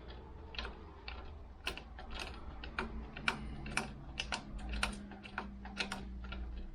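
Irregular light metallic clicks and taps of hand tools working at a broken bolt, several a second, over a faint steady hum.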